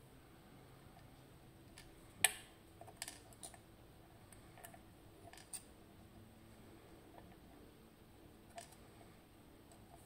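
Scattered small clicks and ticks of key pins and small lock parts being handled while a FAB 3-star pin tumbler lock is taken apart, with one sharper click about two seconds in.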